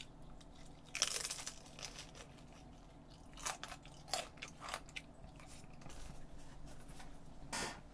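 Crunching bites and chewing on a fried potato chip, with the sharpest crunch about a second in and a few smaller ones after.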